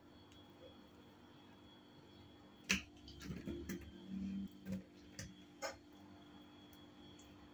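Faint room tone, then about two and a half seconds in a sharp click followed by a few seconds of light clattering and several short clicks as chopped eggplant filling is placed on the rolled-out dough.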